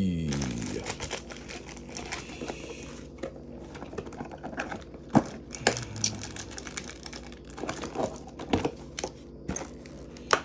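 Pokémon trading cards and plastic card sleeves being handled: irregular crinkling and rustling with light clicks and taps.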